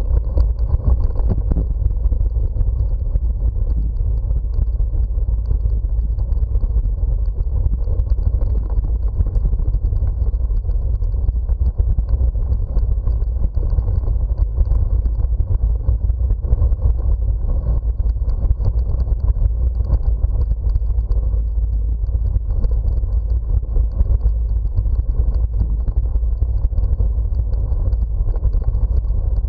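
Steady low rumble of a bicycle ride: wind buffeting the bike-mounted camera's microphone, mixed with the tyres rolling over the road surface.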